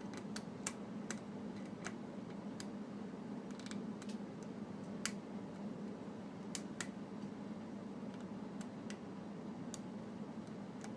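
Scattered small metallic clicks of a lock pick working the pins of a Schlage Everest pin-tumbler lock cylinder, at irregular intervals, over a steady low hum.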